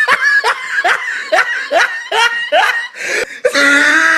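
A person laughing hard in a quick run of short breathy bursts, about two or three a second, breaking into a longer drawn-out laugh near the end.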